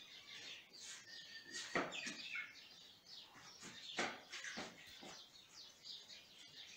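Small birds chirping faintly in the background, with a few light knocks as a plastic selfie stick is handled.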